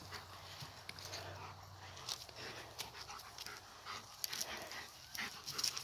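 A dog panting at play, with faint scattered scuffs.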